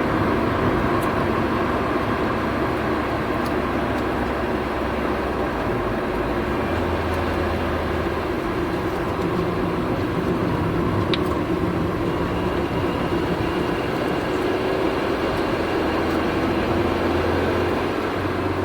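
Worn front hub bearing on a Honda Civic EK9 rumbling while the car is driven, a low droning growl over road and engine noise. Its pitch shifts a little as the road speed changes.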